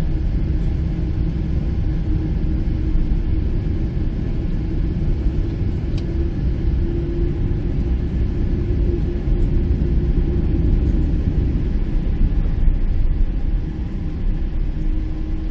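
Steady low rumble of Boeing 777-300 cabin noise with the engines running, heard from the rearmost seat, with a faint steady hum over it.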